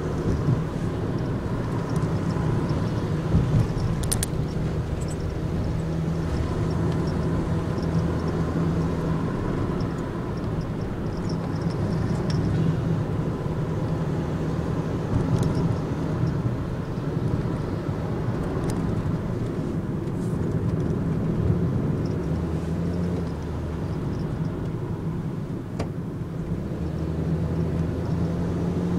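Nissan NV200 van driving, heard from inside the cabin: a steady engine hum with tyre and road noise, and a couple of light clicks.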